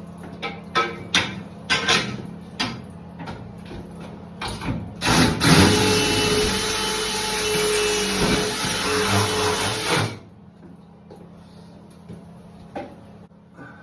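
Sharp knocks and clicks of metal shower-door rails being handled and fitted, then an electric drill running at a steady pitch for about five seconds and stopping suddenly, followed by a few light clicks.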